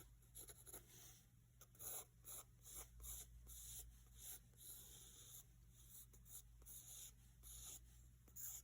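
Pencil scratching on sketchbook paper in many short, faint, irregular strokes, as the lines of a drawing are sketched.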